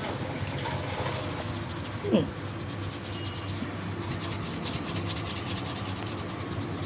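Barber's hands rubbing briskly over the customer's skin and hair during a head massage, a quick, even run of friction strokes, with one sharp louder sound about two seconds in.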